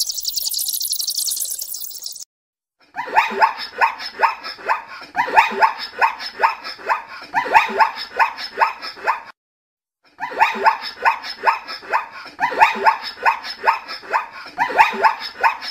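A high, fast-pulsing buzz for about two seconds, then after a brief gap, bursts of rapid animal calls in quick series, each burst about two seconds long with short pauses between. The call sequence stops for about a second midway and then repeats the same pattern.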